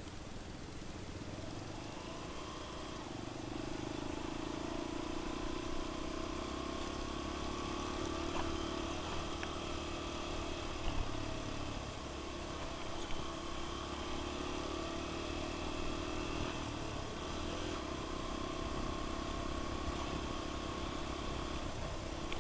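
Suzuki DR single-cylinder four-stroke motorcycle engine running under way, heard from the bike itself. Its pitch climbs slowly and drops back at gear changes about halfway through and again twice later, with a few short sharp knocks along the way.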